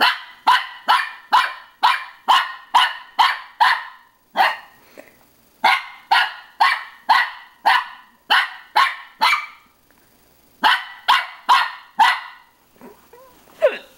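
Small white dog barking at its own reflection in a mirror: short, sharp barks about two a second, in three runs separated by brief pauses.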